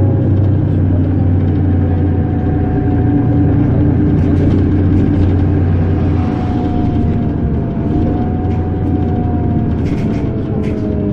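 Mercedes-Benz Citaro G articulated bus running under way, its engine drone steady beneath a whining tone from the drivetrain and ZF Ecomat 6HP502C automatic gearbox. The whine falls slowly in pitch, rises briefly about eight seconds in, then falls again.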